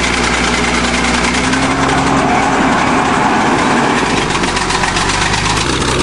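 Old crawler bulldozer's engine running steadily and loudly near the top of a steep climb, its note rising slightly early on; the sound changes abruptly near the end.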